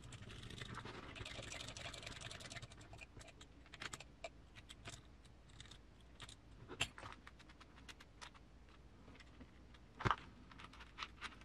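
Faint bench work on a small plastic RC transmission case: soft rustling and scraping at first, then scattered light clicks of small parts and a hex driver, with one sharper click near the end.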